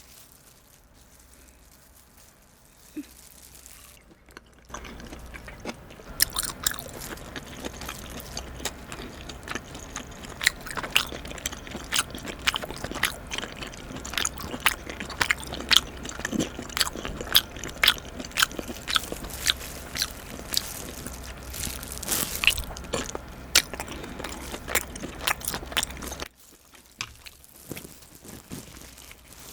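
Close-miked chewing of steamed abalone: quiet at first, then from about five seconds in, steady chewing with many sharp crunchy clicks, stopping a few seconds before the end.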